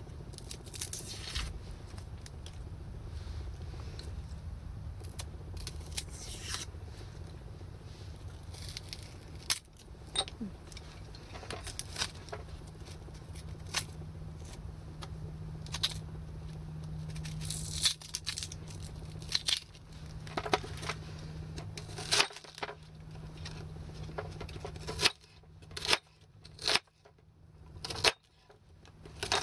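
Kitchen knife cutting and scraping on a wooden chopping board, with scattered clicks and taps. About 25 seconds in come sharper, louder chops on the board, about one a second, as a red onion is chopped.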